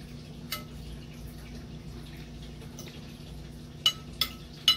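Cutlery clinking on a plate during a meal: one light clink about half a second in and three sharper clinks close together near the end, over a steady low room hum.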